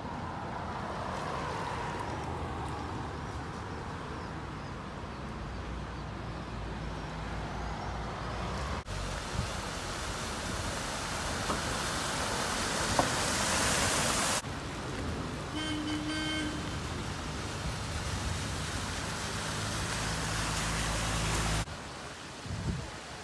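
Street sound in a downpour: traffic and rain on flooded roads. About nine seconds in, a car drives through deep floodwater with a loud spraying hiss for several seconds, and a little later a car horn gives one short toot.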